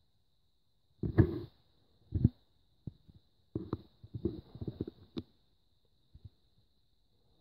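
Footsteps on an old wooden floor, a few uneven thuds and shuffles as someone walks through a doorway, most of them bunched together in the middle. A faint steady high whine sits under them throughout.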